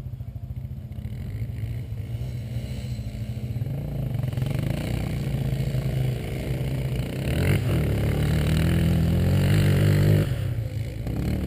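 Four-wheel-drive truck engine running under load while driving off-road, heard inside the cab, getting louder as it pulls harder. There is a sharp knock about seven and a half seconds in and a brief easing off about ten seconds in.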